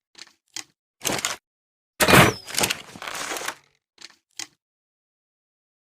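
Crossbow sound effect: a couple of small mechanical clicks, a short scraping burst about a second in, then a loud sharp shot about two seconds in that dies away over half a second. A rattling scrape follows, then two more small clicks, with dead silence between the sounds.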